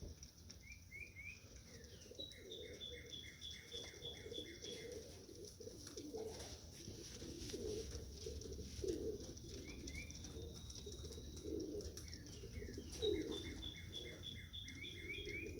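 Domestic racing pigeons cooing repeatedly, with a small songbird giving a quick run of high chirps twice, once near the start and once near the end.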